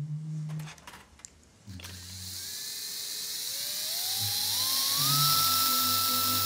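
High-speed surgical cranial drill spinning up. A few clicks come first; then a whine climbs in steps over about three seconds and holds at a steady high pitch, with a hiss that grows louder, over a low hum.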